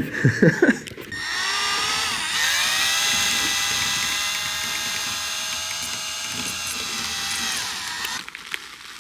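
A small electric power tool motor whining up to speed about a second in, running steadily, then stopping about eight seconds in.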